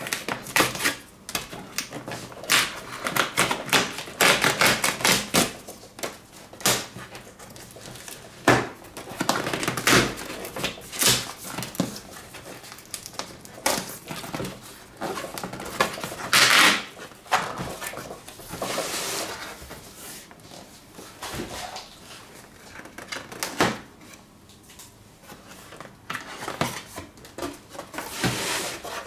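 Cardboard packaging being handled and opened: irregular taps, knocks, scrapes and rubbing as a box flap is pried up and a printed outer sleeve is slid off an inner cardboard box. Louder scraping comes a little past the middle.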